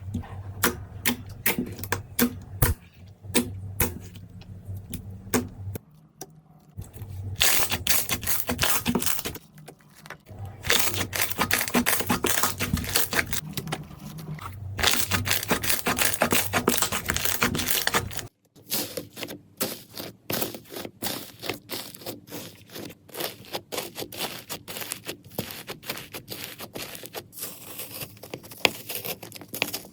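Slime being squished, poked and stretched by hands, making rapid sticky clicks, pops and crackles. The texture changes abruptly a few times between clips.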